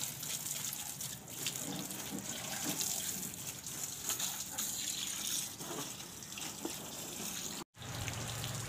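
Water from a hand-held garden hose spraying steadily and splashing over a car's engine bay and radiator as the engine is rinsed. The sound cuts out for an instant near the end.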